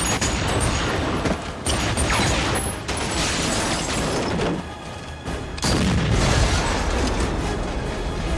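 Film gunfire and explosions: a sudden pistol shot, then continuous shooting with bullets striking stone and metal and several booming blasts, over an action music score.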